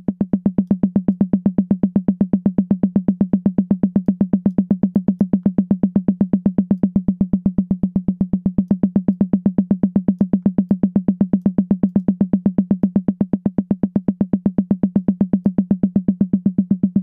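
Sampled high tom drum hit looping in fast, even sixteenth notes, about eight hits a second, each hit a short thud at the same pitch.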